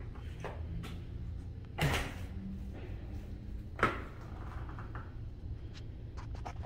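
Two brief knocks about two seconds apart from a swinging stainless-steel kitchen door being pushed, over a steady low hum.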